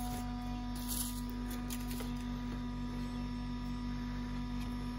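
A steady hum at an even level, with no knocks or other events.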